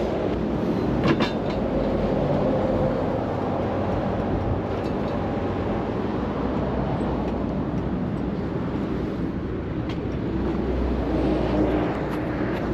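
Steady rumble of a heavy vehicle running, engine and road noise with a rattling, clattering quality, and a few sharp clicks about a second in.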